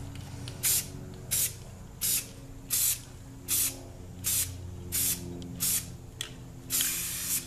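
Aerosol can of spray primer hissing in short bursts, about nine quick puffs under a second apart and then one longer spray near the end, lightly misting primer over the sprocket to mark its bolt holes.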